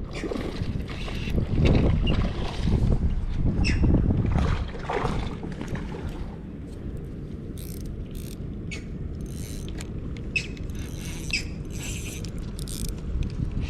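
Fishing reel being cranked and clicking while a hooked snook is fought on rod and line, over a low rumble that is louder for the first few seconds.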